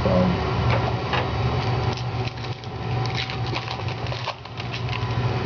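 Trading cards being handled and flipped through: a run of light clicks and rustles of card stock, thickest in the second half, over a steady low hum.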